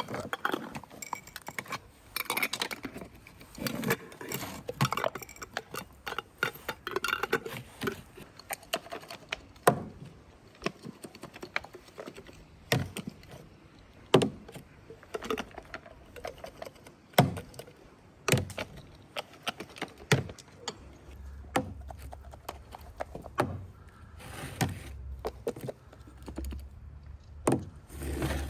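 Irregular clinks, clicks and knocks of kitchenware and food being handled during cooking preparation, some sharper than others. A low steady rumble joins about two-thirds of the way through.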